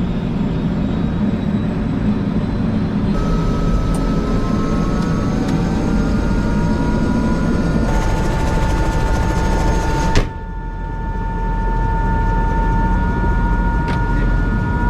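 Eurocopter EC130 helicopter running, its turbine and rotor noise heard from inside the cabin, with a steady low rumble and a whine that rises slowly in pitch as the engine comes up to speed. A sharp click and a sudden dip in level come about ten seconds in.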